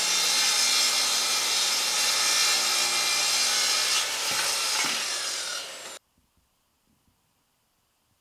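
Festool TS 75 EQ plunge track saw cutting through a walnut panel along its guide rail, then its motor winding down with a falling whine. The sound cuts off abruptly about six seconds in, leaving near silence.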